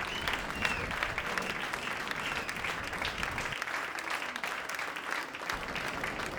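Steady crackling hiss of rain and surf on an open beach, full of fine ticks. A few short high chirps come near the start.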